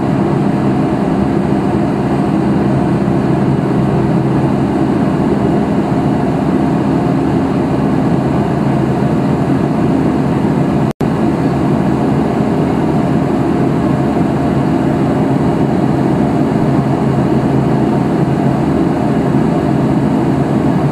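Steady drone of an aircraft's engines and airflow heard inside the cockpit, with a few steady low hum tones. The sound cuts out for an instant about halfway through.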